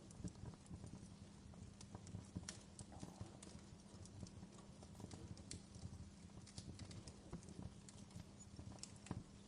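Faint wood fire crackling in a fireplace: irregular sharp pops and snaps at uneven intervals over a low, steady rumble.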